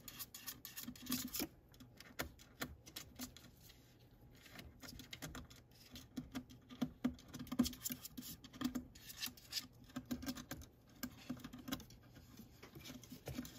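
A ferret's claws scrabbling and scratching at the gap of a closed drawer as it pushes its head in, making irregular clicks, scrapes and soft knocks.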